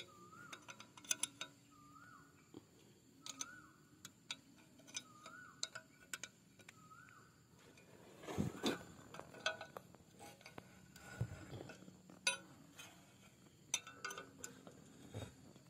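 Irregular metallic clicks and clinks of a wrench working on a mini tiller's bolts as they are tightened, with a louder bout of clanks about eight seconds in. A short rising-and-falling call repeats about every second and a half through the first half.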